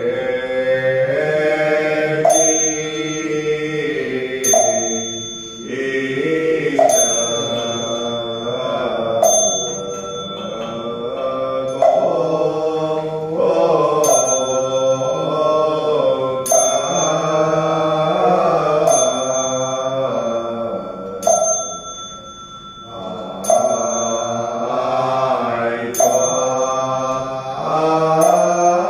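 Mahayana Buddhist prayer chanting by a small group of voices in melodic unison, with a small bell struck about once every two and a half seconds, each strike ringing on. The voices pause briefly about three-quarters of the way through.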